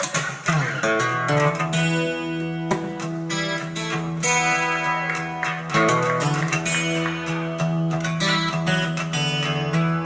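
Guitar music with plucked and strummed notes and bass, played back through Pioneer PE-101A full-range speakers driven by a tube amplifier, heard in the room.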